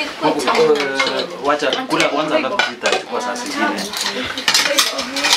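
Spoons and serving utensils clinking against plates and pots as food is dished out and eaten, with a run of sharp clinks over several voices talking at once.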